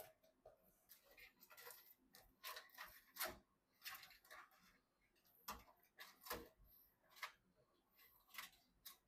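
Faint, irregular clicks and short scrapes of small computer parts being handled and fitted together by hand.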